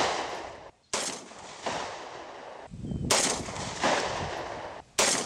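A string of gunshots from a long gun, about six reports, each trailing off with a ringing tail. A sharp shot comes about one, three and five seconds in, each followed by a weaker report a moment later.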